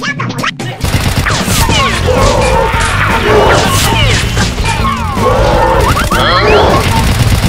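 Rapid-fire gunfire and crash sound effects with whizzing sweeps, layered over background music with a steady low beat; it all starts about a second in.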